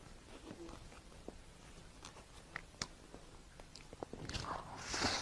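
Quiet eating sounds of chewing rainbow cake: scattered small clicks and mouth noises, with a louder noisy swell near the end.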